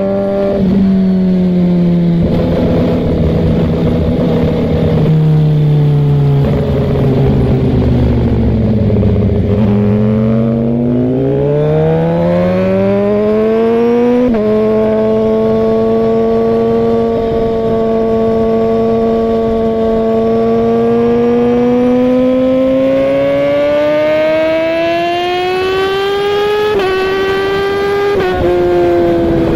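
Suzuki GSX-R 1000's inline-four engine under way. Its pitch sags over the first ten seconds, climbs, and drops sharply at a gear change about fourteen seconds in. It then holds steady and climbs again, with two more quick gear changes near the end.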